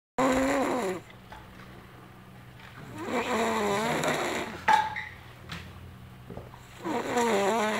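A person snoring heavily: three long, wavering snores a few seconds apart, with a short sharp sound at the end of the second.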